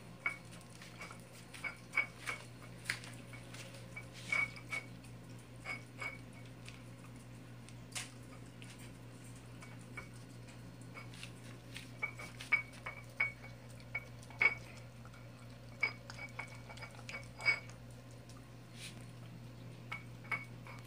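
A dog eating wet food from a metal bowl, the bowl clinking and ringing briefly in many short, irregular clinks, over a steady low hum.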